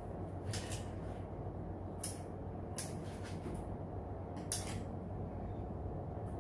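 Kitchen scissors snipping the string tied around a banana-leaf fish parcel: a few short, crisp snips, the loudest about four and a half seconds in, over a steady low background hum.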